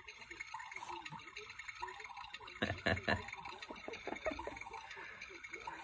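Toy coffee maker playing its brewing sound effect, a liquid pouring and dripping sound, with a few sharp clicks near the middle.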